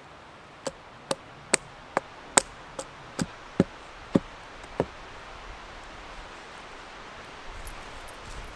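Chopping wood: about ten sharp knocks, roughly two a second, that stop about halfway through.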